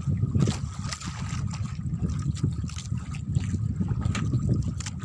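Wind rumbling on the microphone and water lapping against the hull of a small outrigger boat at sea: a steady, fluctuating low rush with a few light clicks.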